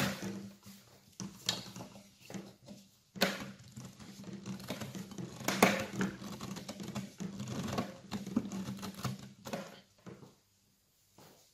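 Plastic clicks, knocks and rubbing as a vacuum hose adapter is pushed onto a circular saw's dust outlet and the saw is handled on a table. The sharpest knocks come about 3 and 5.5 seconds in, and it goes quiet near the end.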